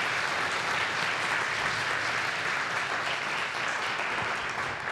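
Audience applauding in a lecture hall: many people clapping steadily, dying away right at the end.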